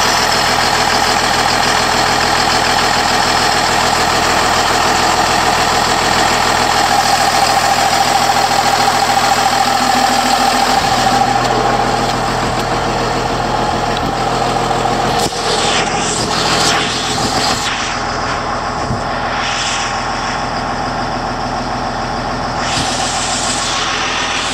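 Caterpillar 938H wheel loader's diesel engine idling steadily, heard close up with the engine compartment open.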